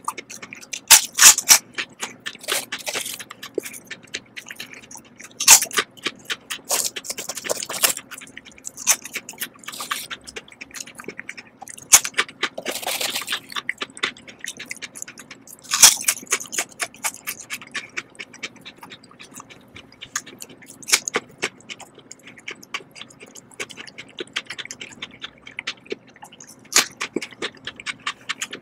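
Lay's Texas BBQ potato chips being bitten and chewed close to the microphone: irregular sharp crunches and crackles, with louder bites every few seconds.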